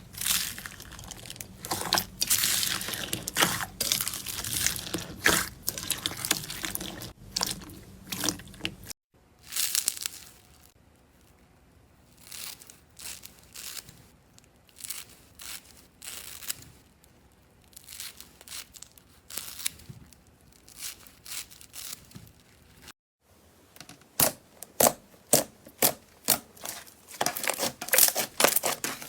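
Slime being squeezed, stretched and pressed by hand, giving a dense run of crackles and pops. About nine seconds in it cuts to a much quieter stretch of scattered small pops, and near the end dense, louder crackling comes back after another cut.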